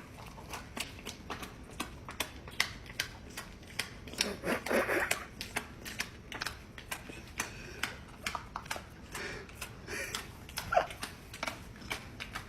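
Irregular light clicking and tapping, several clicks a second, with a softer rustling patch about four seconds in.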